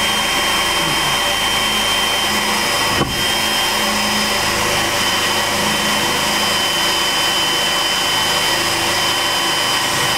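Milwaukee M18 cordless drill running steadily at full speed, boring a hole up through a fiberglass truck canopy roof, with a steady high whine that briefly eases off about three seconds in.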